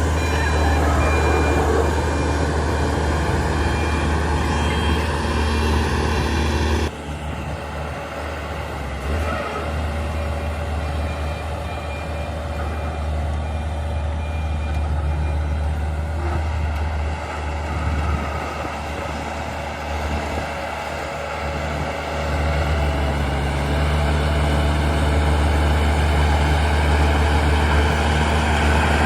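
Heavy diesel engine of earthmoving machinery running steadily. It drops abruptly in level about seven seconds in and grows louder again near the end.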